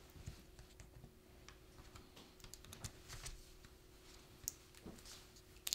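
Faint clicks and light plastic taps as a laptop battery is handled and fitted into the open laptop chassis, with one sharper click just before the end.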